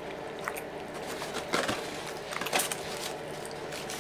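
Close-miked eating of KFC fried chicken: a few sharp crunching and clicking mouth sounds, the loudest about one and a half and two and a half seconds in, over a steady low hum.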